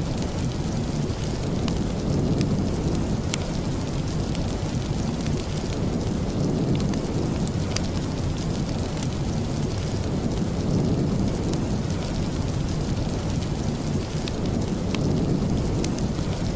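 Steady rain with a heavy low rumble under it and scattered sharp ticks throughout.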